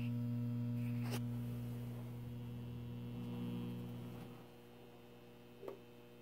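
A 1936 Silvertone 4563 six-tube table radio hums steadily through its speaker while its dial is tuned between stations. The hum fades down about two-thirds of the way through. There is a click about a second in and a small tick near the end.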